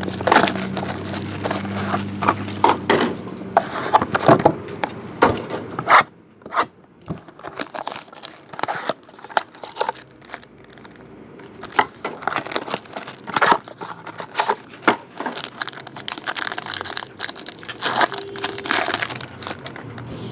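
Wrapping crinkling and tearing as a trading-card box and pack are opened, with irregular crackles, clicks and scrapes from the cards and packaging being handled. It is quieter for a few seconds around the middle.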